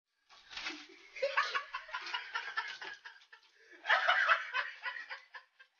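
Someone laughing in repeated bursts, loudest about four seconds in.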